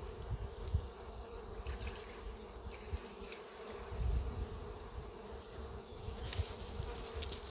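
Honey bees buzzing around an open hive in a steady hum. A crackly rustle from handling joins in about six seconds in.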